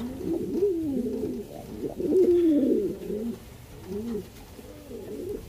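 Domestic fancy pigeons cooing: a run of low, rising-and-falling coos that overlap, loudest about two seconds in, then single coos near the end.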